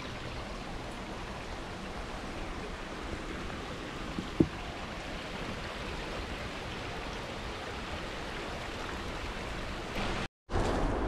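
Steady rushing of river water, with one sharp knock about four seconds in. The sound drops out for a moment near the end.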